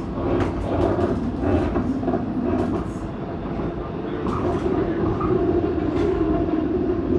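TTC streetcar running along the rails, heard from on board: a steady rumble of wheels and running gear with a motor hum that strengthens in the second half, and scattered clicks and clunks from the track.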